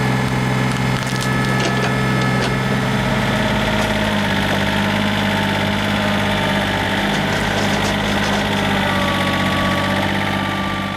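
Tractor engine running steadily while a stump's roots are torn out, the wood cracking and splintering with scattered sharp snaps, most of them in the first few seconds. The engine note drops slightly about four seconds in.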